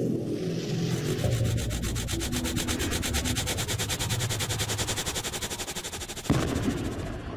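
Animated logo-intro sound effect: a low rumble under a rapid, evenly pulsing hiss, then a sudden hit about six seconds in.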